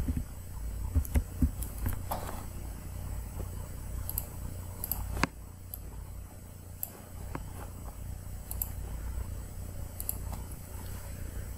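Low steady hum with scattered light clicks from the computer's pointing device. There is a quick cluster of clicks about a second in, then single clicks every second or two.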